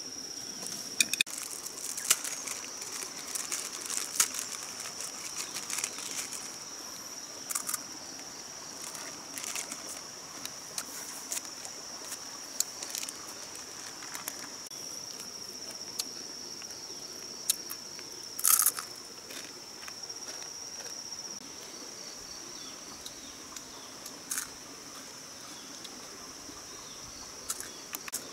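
Steady high-pitched drone of insects chirring, with scattered close clicks and crinkles of handling and eating; the loudest is a short crackle about eighteen seconds in.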